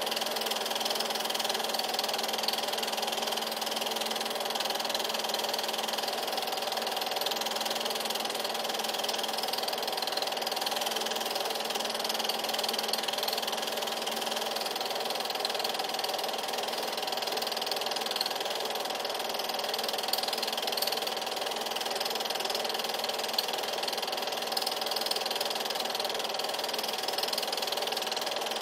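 Film projector running through 8mm film: a steady mechanical whir and hum that does not change, with no other sounds over it.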